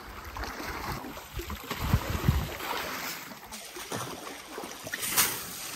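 Water sloshing and splashing as elephants wade through a shallow muddy pool, with a sharper splash about five seconds in.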